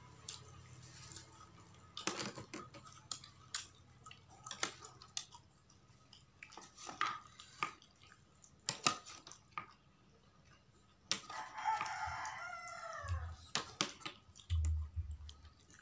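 Eating sounds: scattered clicks, clinks and mouth noises from a meal of curried fish head and rice eaten by hand and spoon. About eleven seconds in, a rooster crows once, a call of about two seconds that falls in pitch at the end.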